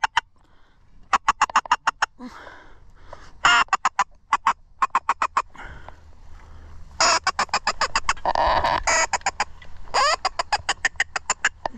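Duck call blown in quick runs of sharp quacks, about six bursts of rapid notes with short pauses between them, calling to incoming ducks.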